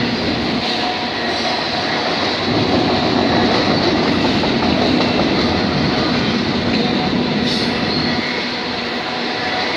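Freight train of enclosed autorack cars rolling past: a steady rumble of steel wheels on the rails, with a faint, steady high whine over it.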